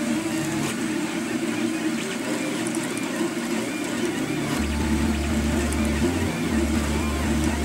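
Home-built RepRap Mendel 3D printer's stepper motors running as it prints, a steady hum that changes and cuts in and out in short segments from about halfway through as the print head makes its moves.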